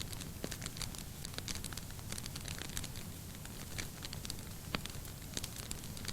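Wood fire burning in a fireplace: a steady low rumble of flame with frequent irregular crackles and snaps, one sharper pop a little under five seconds in.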